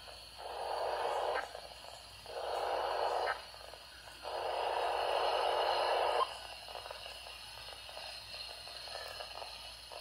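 NOAA Weather Radio alert coming from the small speaker of a Midland emergency radio tuned to 162.400 MHz: three raspy bursts of digital data, the SAME header that opens an Emergency Alert System warning, separated by short gaps. After the bursts only a low hiss remains.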